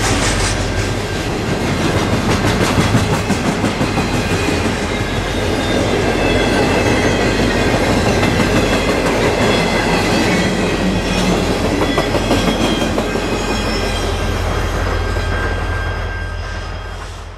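Intermodal freight train of trailers on flatcars rolling past at close range: a steady low rumble with rapid clatter of wheels over the rails and faint high-pitched wheel squeal. The sound fades out near the end.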